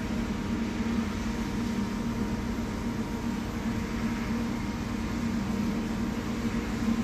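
Steady low mechanical hum with a constant drone and an even hiss over it, unchanging throughout.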